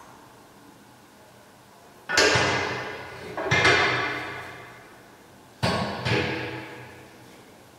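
Metal clanks of a loaded barbell and its weight plates: four knocks in two pairs, each ringing out for about a second.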